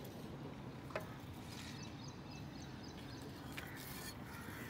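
Faint outdoor background noise with a steady hiss, a few short high chirps in the first half, and soft clicks about a second in and again past three seconds.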